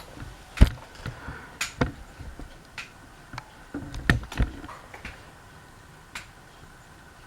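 An irregular series of sharp clicks and knocks, about nine in all, from objects being handled and set down. The loudest knock comes just over half a second in, and a cluster follows around four seconds in.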